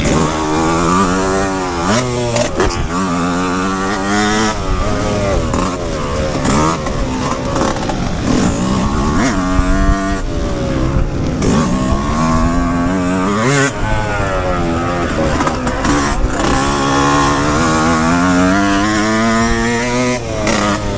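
Yamaha YZ125X two-stroke motocross engine being ridden hard, its pitch climbing, cutting back and climbing again over and over.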